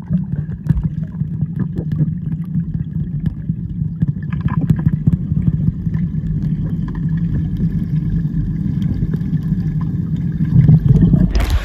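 Muffled underwater sound picked up by a phone held beneath the surface of a swimming pool: a steady low rumble with small clicks and bubble noises. Near the end it suddenly opens up into clear open-air sound as the phone comes out of the water.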